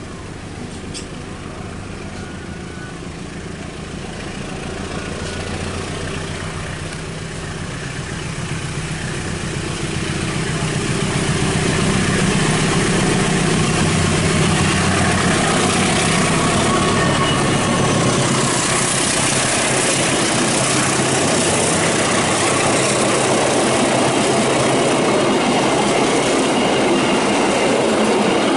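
Train with a diesel locomotive drawing closer: the low engine note grows louder over about ten seconds, then loud wheel and carriage noise from the train rolling past takes over and holds.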